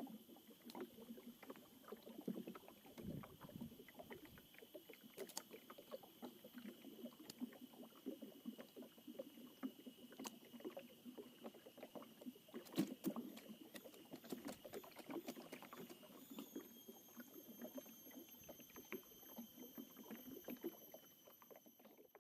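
Faint small water lapping and ticking, as around a small boat on a river, with a stronger splash about thirteen seconds in. Over it runs a steady thin high-pitched whine that changes pitch about sixteen seconds in.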